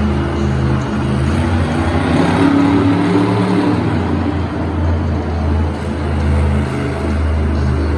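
Monster truck engines, supercharged big-block V8s, running and revving with a deep steady drone, swelling louder about two seconds in.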